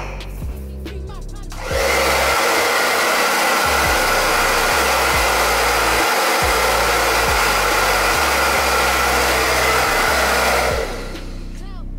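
BaBylissPRO handheld hair dryer blowing steadily: a loud, even rush with a faint whine in it. It starts about two seconds in and stops shortly before the end, over background hip-hop music.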